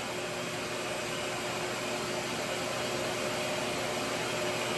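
RevAir reverse-air hair dryer running steadily, a constant rush of air with a faint steady hum, as its suction draws the hair into the wand to stretch it.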